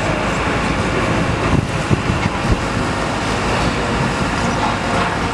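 JCB Hydradig wheeled excavator's diesel engine running steadily under load as the hydraulics work the arm, with a few dull knocks around the middle.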